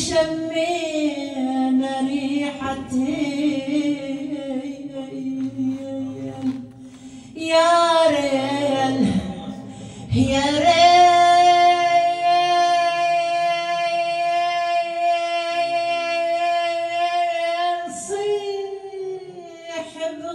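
A woman singing solo and unaccompanied into a microphone, drawing out long ornamented notes in an Iraqi song. About halfway through she holds one note steady for about eight seconds before moving into another phrase.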